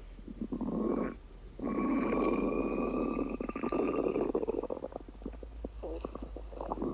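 Stomach rumbling: a short gurgle, then, about a second and a half in, a long rumble of around three seconds that breaks up into a run of quick gurgles and pops near the end.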